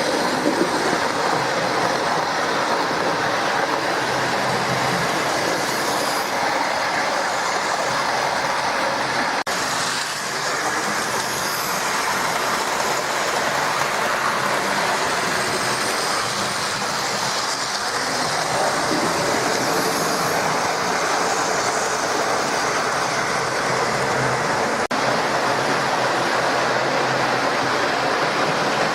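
Hornby OO-gauge model locomotives running on the layout, including a 1980s tender-driven LNER A4: a steady whirr of the small electric motors and the rattle of wheels over the rail joints.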